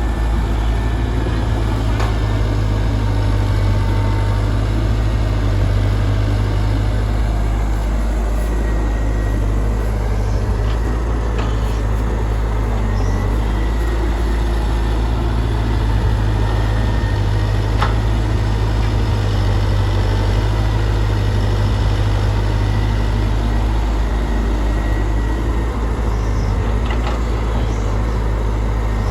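Excavator's diesel engine running steadily under load with a deep, even rumble, with a few faint knocks from the machine's work.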